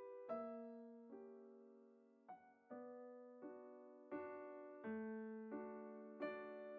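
Quiet background piano music: slow chords struck one after another, each left to fade.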